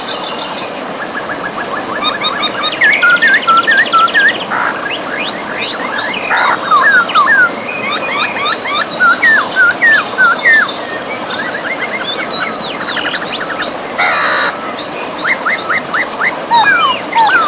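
Several birds singing at once, many short chirps, whistled notes and quick rattling trills overlapping throughout, over the steady rush of river water.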